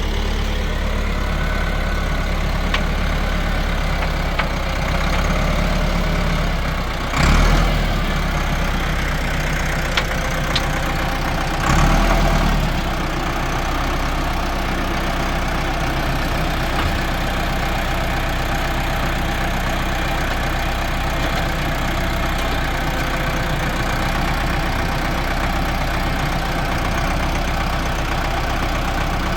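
Tractor engine running steadily at a low idle-like drone, with two brief louder surges about seven and twelve seconds in.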